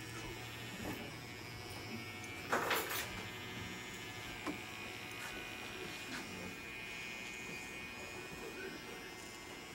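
Electric hair clipper buzzing steadily as it is run over a client's head during a skin-taper fade. About two and a half seconds in, a brief loud noise stands out above the buzz.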